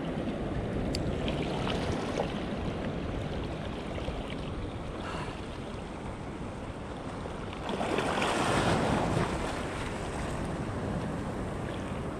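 Small sea waves washing against the shore, with wind buffeting the microphone; a louder rush of water and wind rises and falls about eight seconds in.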